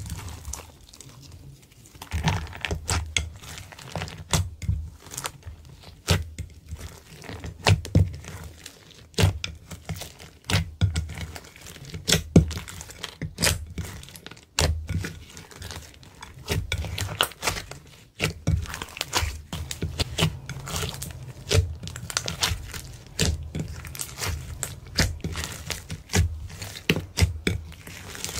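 Hands kneading, stretching and folding slime: a dense run of irregular sticky clicks and crackles over soft low thuds as the slime is pressed and pulled.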